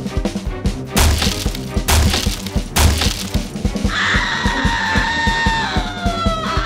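Cartoon soundtrack: fast, rhythmic chase music with three loud crashing, cracking hits about a second apart. About four seconds in, a long tone slides slowly downward while the ring of the cartoon planet cracks.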